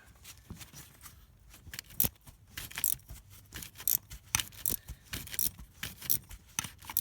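Hand wrench turning out a broken exhaust manifold bolt, held by a weld, from a 5.3 Vortec cylinder head: a string of short, sharp metal clicks, about two or three a second, as the bolt is worked out in short strokes.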